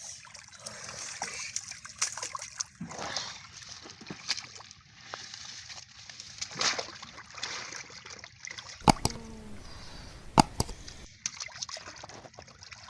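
Muddy water sloshing and splashing as hands churn through it, with two sharp knocks about nine and ten and a half seconds in.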